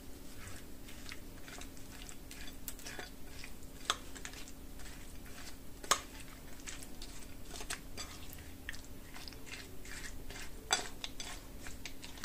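Someone eating from a plate: chewing, with irregular light clicks and taps of cutlery on the dish, three of them sharper, about 4, 6 and 11 seconds in.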